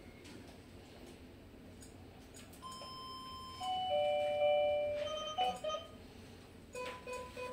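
Electronic chime: a few held notes that step down in pitch, then short beeps, ending in a quick series of short beeps. It is a device prompt sounding while the Wi-Fi video door phone pairs with the Tuya app.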